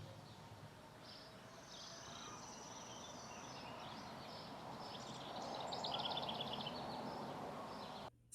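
Small birds chirping over a steady background hiss, with a quick run of rapidly repeated chirps about five and a half seconds in. The sound cuts off abruptly just before the end.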